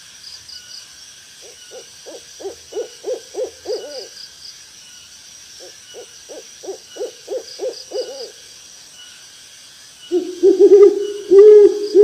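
Owl hooting: two runs of about eight quick hoots, then louder, longer hoots near the end. Underneath, insects trill steadily with short repeated chirps.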